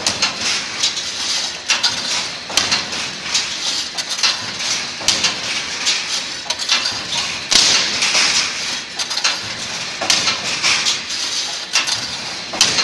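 Automatic wire mesh welding machine running its cycle: sharp metallic clanks from the welding heads and wire feed, with repeated bursts of hiss and crackle as the spot welds throw sparks. The bursts come every second or two, and the strongest is a little past halfway.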